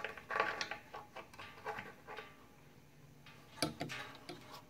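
Light metallic clicks and clinks of a hand wrench and pliers working a brass pressure relief valve as it is tightened into a steel air compressor tank. A run of small clicks comes first, then a louder clink about three and a half seconds in.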